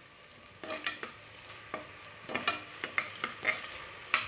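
A metal spoon stirring an onion, ginger-garlic and curd mixture in a pressure cooker, scraping and tapping against the pot about ten times, over a soft frying sizzle.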